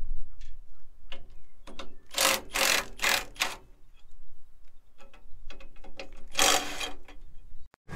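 Cordless impact wrench hammering on the bolts of a moldboard plow's shares while a share is being changed. It runs in short bursts, three in quick succession about two seconds in and one more near the end, with small clicks of handling between them. Wind rumbles on the microphone underneath.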